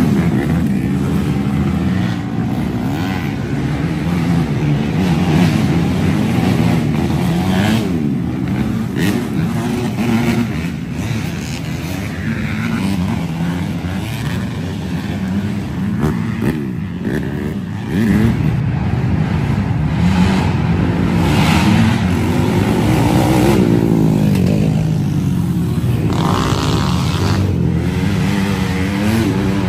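Several youth race ATV engines revving up and down as the quads ride by, their overlapping pitches rising and falling without a break.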